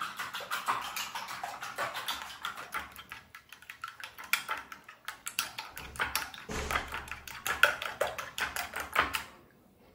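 A metal spoon beating egg in a small ceramic bowl: quick, irregular clinks and taps of the spoon against the bowl, stopping shortly before the end.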